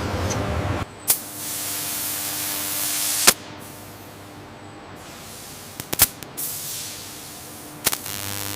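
A low machine rumble that cuts off just under a second in, then a steady hiss broken by a sharp knock about three seconds in and short clusters of clicks around six and eight seconds.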